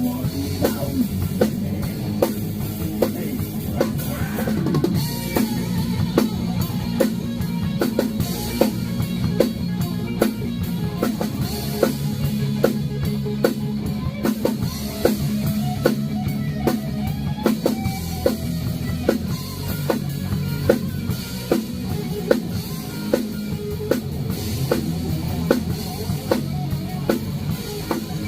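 Rock band playing through a song live: a drum kit keeps a steady beat of kick, snare and rimshots under sustained bass and electric guitar.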